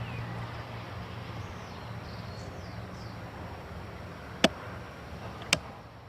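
Two sharp cracks about a second apart, from an air rifle being fired, over faint birdsong and a steady low hum.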